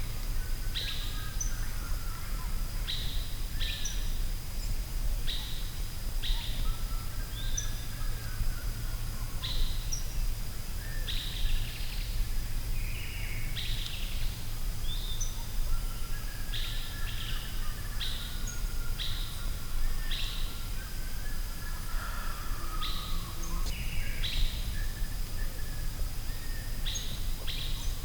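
Forest ambience with birds calling: a short, sharply falling high call repeats about once a second, with softer warbling song lower in pitch. A steady low rumble and a faint steady high tone run underneath.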